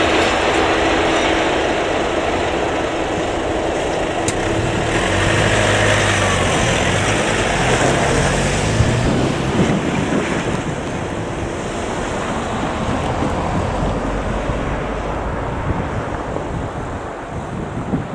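Wind buffeting the microphone over the fading rumble of a departing freight train, with cars driving over the level crossing partway through.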